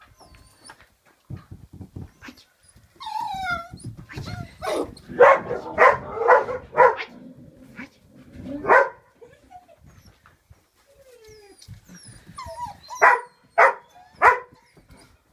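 Border collie puppy whining and yapping: a high whine falling in pitch about three seconds in, then a burst of short yaps, and three more yaps near the end.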